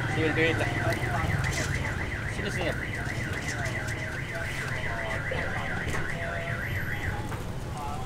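An electronic alarm warbling, its tone swinging up and down about three times a second, cutting off about a second before the end, over a steady low hum.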